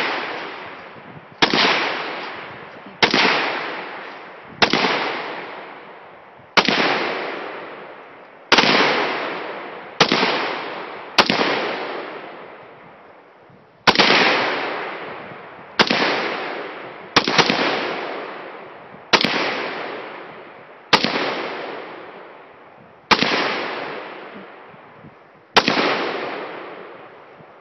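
Windham Weaponry M4 semi-automatic AR-15 rifle in .223/5.56 firing single shots at a steady pace, about fourteen, one every one and a half to two and a half seconds. Each crack trails off in a long echo.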